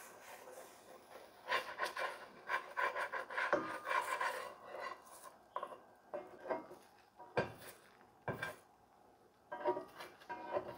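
A spatula scraping and rubbing over the coarse, mineral-flecked nonstick surface of a Henckels Capri Granitium skillet, pushed under a frying egg in a run of short strokes. A few lighter scrapes and taps follow.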